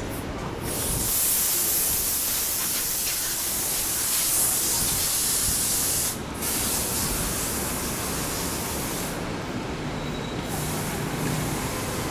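Busy city street noise: a steady, loud hiss with traffic. It drops briefly about six seconds in and again for a second or so near the ten-second mark.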